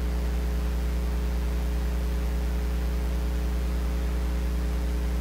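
Steady electrical mains hum with hiss: a low buzz with a few fainter steady tones above it, unchanging throughout.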